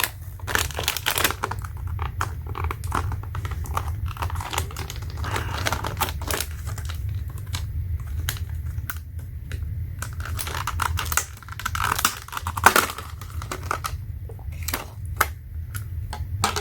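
Hands handling plastic packaging and small repair tools: irregular clicks, taps and plastic crinkling, over a steady low hum.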